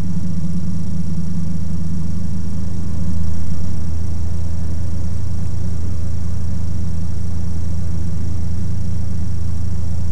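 Ikarus C42 microlight's engine and propeller droning steadily in cruise flight, with a slight swell in loudness about three seconds in.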